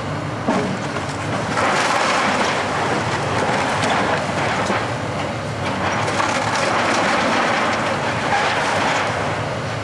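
Komatsu hydraulic excavator's diesel engine running under load as its bucket tears into a stone house wall, with the rough, continuous crumbling and crashing of falling stone and timber debris. A sharp knock about half a second in.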